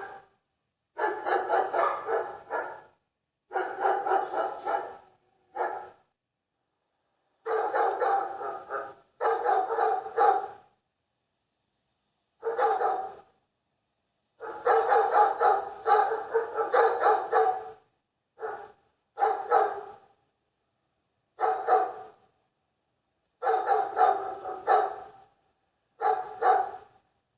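Dogs barking in short runs of rapid barks, about a dozen separate bouts each lasting under a second to two seconds, with complete silence between them.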